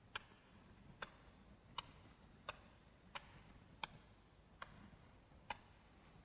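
Faint, sharp ticks at a slow, even pace, about one every three-quarters of a second, eight in all, with only quiet room tone between them.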